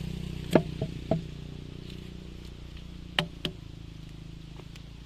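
Stihl chainsaw idling steadily, with five sharp knocks over it: three close together about half a second to a second in, then two more about three seconds in.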